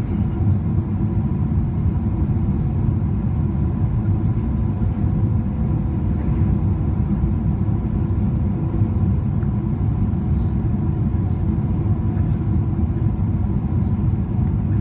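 Steady low rumble of airflow and engine noise heard inside the cabin of a Boeing 777-300ER airliner descending on approach, with a faint steady hum above it.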